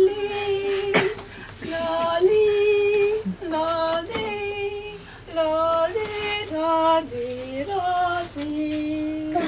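Singing without words: a slow melody of held notes that step up and down from one to the next.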